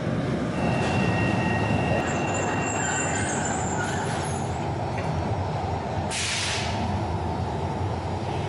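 Genova Metro train running with a steady rumble, thin high whines in the first few seconds, and a short hiss of air about six seconds in.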